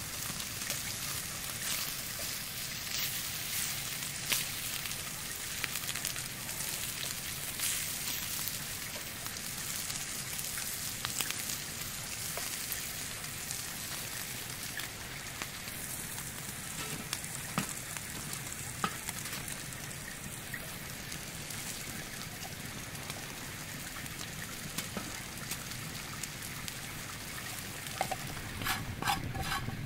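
Bacon sizzling and crackling in a small frying pan heated on a wood-burning Firebox stove. A few sharp clicks of a utensil against the pan come near the end.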